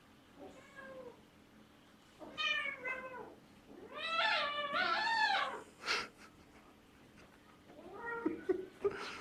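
Siamese cat meowing and yowling several times during a play fight with a kitten. The longest and loudest call is a drawn-out, wavering yowl about four seconds in, and lower, rougher sounds come near the end.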